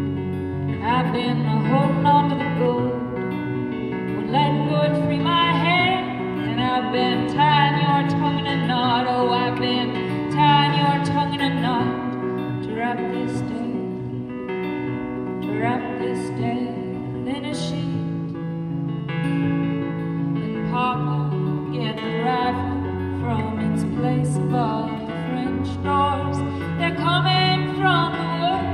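A woman singing a folk song live, accompanying herself on acoustic guitar.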